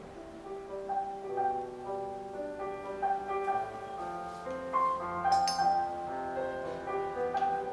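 Background music: a piano melody of single sustained notes.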